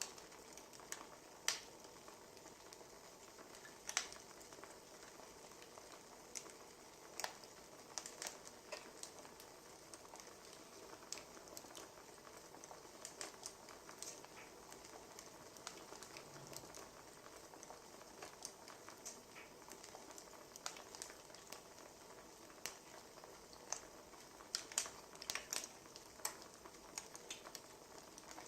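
Wood fire crackling: irregular snaps and pops over a soft steady hiss, with a brief cluster of louder pops near the end.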